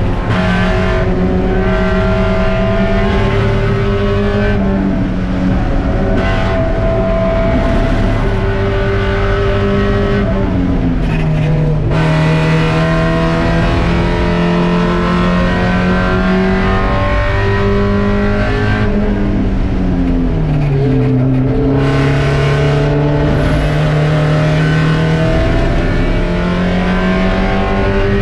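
Spec Miata race car's four-cylinder engine running hard and steady, its pitch dropping twice, about ten and twenty seconds in, and climbing again near the end.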